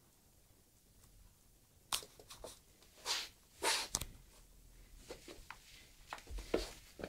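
A pet rabbit scrabbling and rustling about on the floor: a sharp click about two seconds in, two short scraping rustles soon after, then scattered light clicks and knocks.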